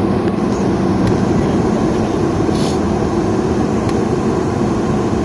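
Steady rumble of a vehicle travelling along a road, engine and road noise together, with a brief high hiss about two and a half seconds in.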